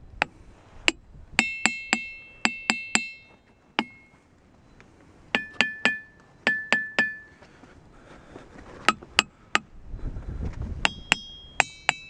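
A small brass-headed hammer tapping diabase boulders in quick runs of two to four strikes, each a sharp clink. Most taps leave a clear bell-like ring, pitched differently from one rock to the next, while a few land dull with no ring.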